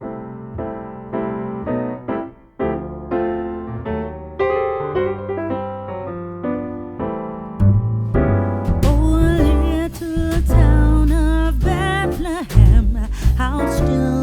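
Background music: a piano or electric piano plays a run of single notes, then a fuller arrangement with bass and a singing voice comes in about eight seconds in.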